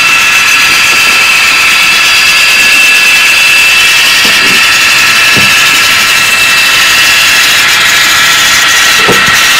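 HO scale model diesel locomotives running slowly in a consist, a steady high whine with a few soft clicks about four, five and nine seconds in.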